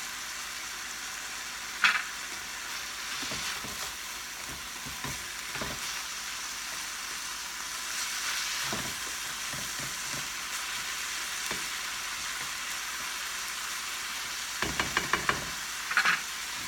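Ground beef sizzling steadily as it browns in a frying pan, stirred with a utensil that gives a few sharp knocks against the pan, the loudest about two seconds in, and a quick run of taps near the end.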